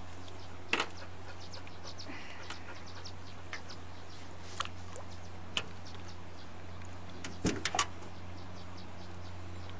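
A steady low motor hum, with a few light knocks and clicks scattered over it, a small cluster of them about three quarters of the way through.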